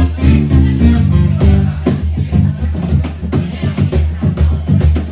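Live band playing an instrumental stretch of a southern soul-blues song, with a bass line and regular drum-kit hits to the fore and no singing.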